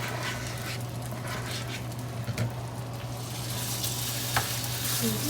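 Food sizzling in a frying pan, the sizzle growing louder about three seconds in. A few light utensil clicks come in the first half, over a steady low hum.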